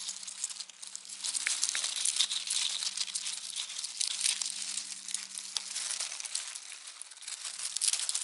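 Dry leaf litter and pine needles crackling and rustling as large black beetles scuffle and fight through it, with a faint steady hum underneath.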